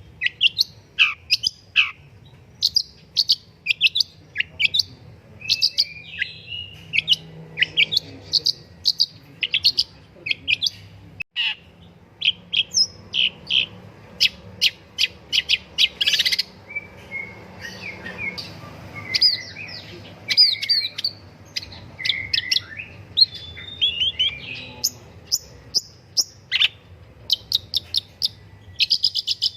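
Long-tailed shrike (pentet) singing a fast, continuous run of short, sharp chirps and quick downward-sweeping notes, with only brief gaps.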